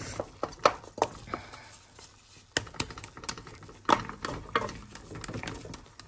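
A wooden spatula stirring and pressing thick halwa in a large metal kadhai: irregular scrapes and soft knocks of wood against the pan, with a few sharper clicks.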